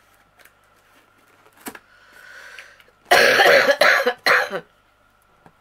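A woman coughing three times in quick succession, about three seconds in, after a short intake of breath.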